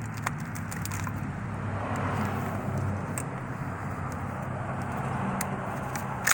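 Steady background vehicle noise, swelling about two seconds in and fading again, with a few faint clicks.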